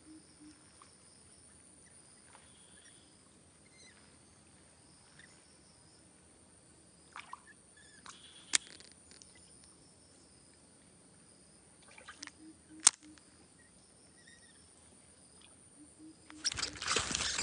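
Quiet outdoor ambience with a faint steady high-pitched drone and a few isolated sharp clicks partway through. About a second before the end, a loud, rapid, jumbled burst of noise starts.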